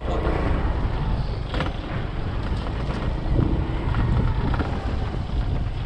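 Motorcycle riding along, a steady low engine rumble mixed with wind noise on the microphone.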